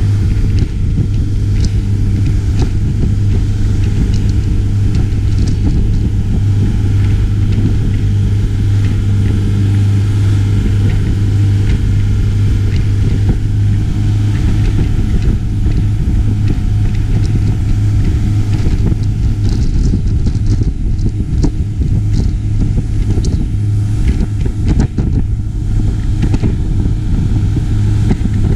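Motorboat engine running steadily at speed, a constant low drone, mixed with the rush of wind and water from the wake. Short sharp knocks and splashes come through, more often in the second half.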